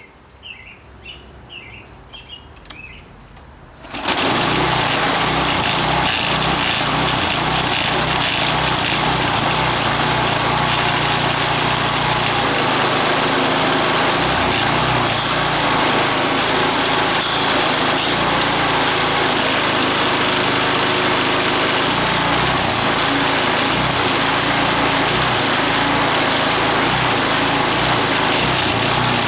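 Troy-Bilt gas pressure washer's small engine starting abruptly about four seconds in, then running steadily at full speed and driving the newly fitted 2700 PSI pump.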